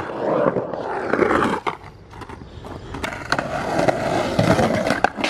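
Skateboard wheels rolling on a concrete path, a continuous rough rumble with a few sharp clicks. It drops quieter about two seconds in, then builds again from about three seconds in.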